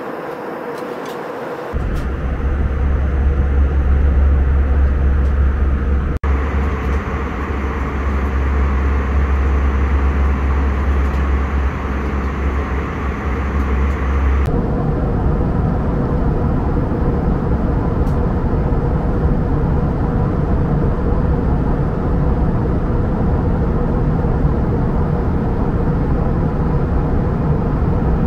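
Steady cabin noise inside an Airbus A320-214, a loud rumble and rush of air. Its character changes abruptly about two seconds in and again about halfway through, with a brief dropout between.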